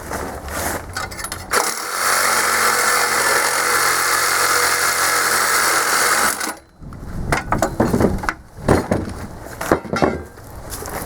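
A power tool runs steadily for about five seconds, then stops, followed by irregular metal clanks and knocks as parts are handled.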